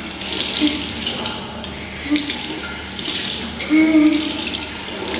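Water running from a sensor tap into a ceramic washbasin, splashing over a hand held under the spout. A few short vocal sounds rise over it, the loudest near the end.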